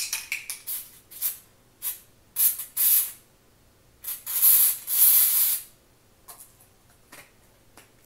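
Aerosol can of fake snow spray hissing in a series of short bursts, with one longer spray of about a second near the middle.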